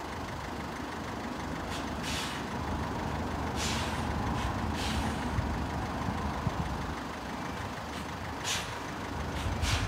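Low, steady rumble of idling road traffic, with about five short hisses at irregular intervals.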